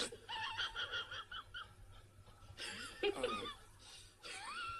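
Meme sound-effect clips of high-pitched snickering laughter in short bursts. Near the end a rising, wavering squeal starts.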